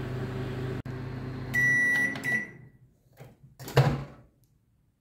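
Microwave oven running with a steady low hum. About a second and a half in it gives a long beep and a short one as it stops, and the hum dies away. Near the end comes a sharp clunk, the loudest sound, as the door is unlatched.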